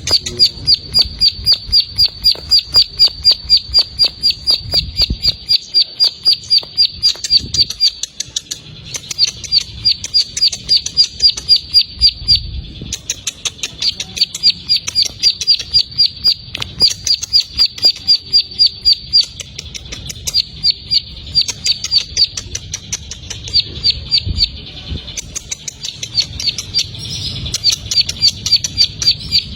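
Ciblek sawah (a prinia) singing a rapid 'ngebren' song: long runs of short, sharp, high chip notes, several a second, broken by brief pauses.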